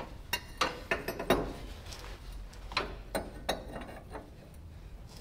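Irregular metal clinks and knocks, about ten over a few seconds, from a tack-welded exhaust header pipe being test-fitted on a riding lawn mower.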